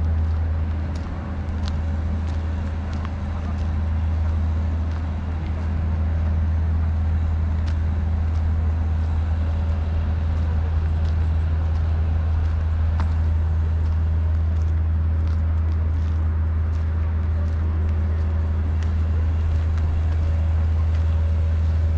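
Outdoor city ambience: a steady low rumble of distant road traffic, with a few faint clicks.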